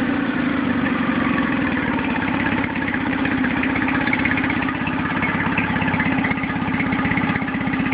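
Nissan 9.8 outboard motor idling on its first run, a steady rapid chugging of firing pulses. At its out-of-the-box idle setting it runs rough, shaking the motor.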